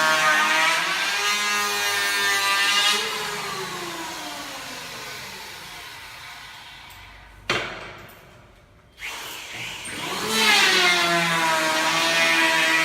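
An electric power tool's motor running at full speed, then switched off and winding down over about four seconds. A sharp click follows, and about nine seconds in the motor starts again and winds up to a steady whine.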